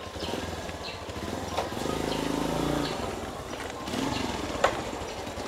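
A vehicle engine humming steadily, swelling for about a second two seconds in and then fading, with a few sharp clicks or taps, the loudest a little before the end.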